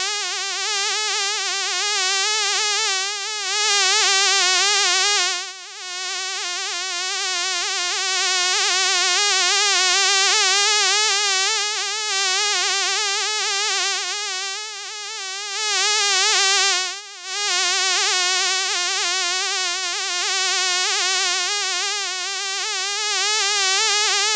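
Fly buzzing: a steady, high wavering drone whose pitch wobbles up and down constantly. The buzz dips away briefly twice, about five seconds in and again at about seventeen seconds.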